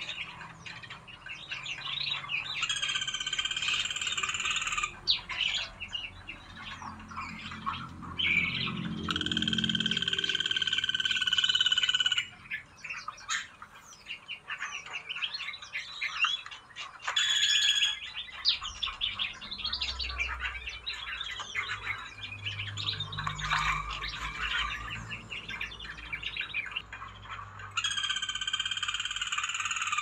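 Mixed chorus of caged songbirds in an aviary: rapid overlapping chirps and whistles, broken by three loud, steady, even-pitched calls of two to three seconds each.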